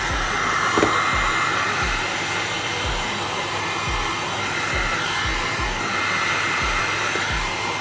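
A hot-air blower running steadily with a rushing sound, as used to shrink heat-shrink tubing over a cable joint, over a hip-hop beat with a steady kick drum.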